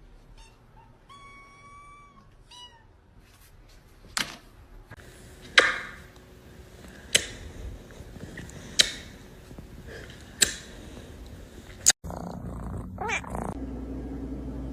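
A cat's drawn-out meow, followed by a run of five sharp knocks about a second and a half apart. After a sudden cut comes a steady low hum with another short cat cry over it.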